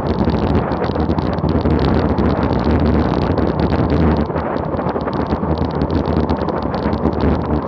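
Steady, loud wind rush over the microphone of a camera on a road bike descending at about 39 mph.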